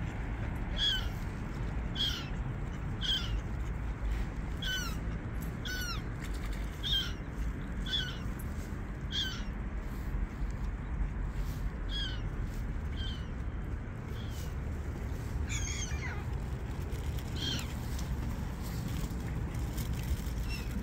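A bird calling repeatedly at a bird-feeding spot by the water, short downward-slurred calls about once a second, then a pause and a few more spread out, over a steady low background noise.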